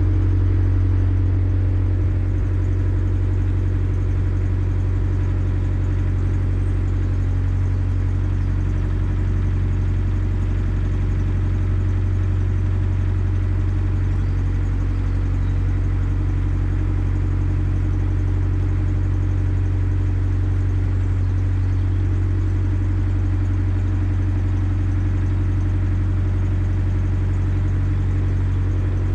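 Narrowboat's inboard diesel engine running steadily at slow cruising speed, a constant low hum with no change in pitch.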